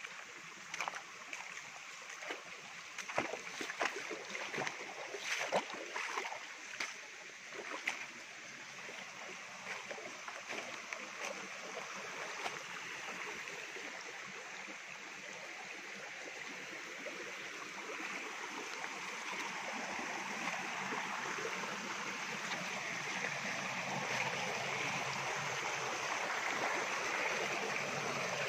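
Rushing stream water, growing steadily louder toward the end. Over the first several seconds, footsteps and rustling in dry leaves and brush give many short clicks over the water.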